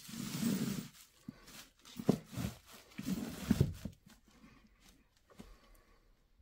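Plastic bubble wrap crinkling and rustling in three bursts as gloved hands push it aside, with a few light clicks from small parts being handled.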